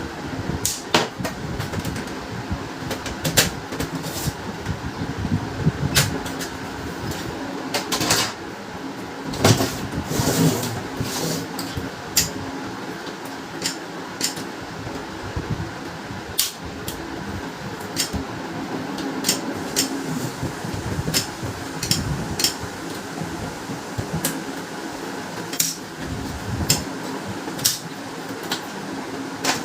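Irregular plastic clicks and knocks of an opened HP LaserJet P1102 laser printer being handled and taken apart, over a steady background hum.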